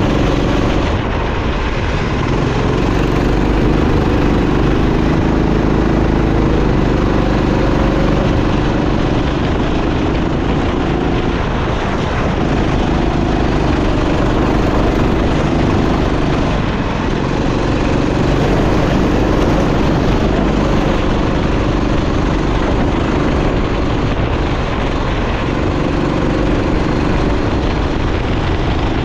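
Go-kart engine running under load, its note rising and easing off every few seconds with the revs, over a constant rush of noise.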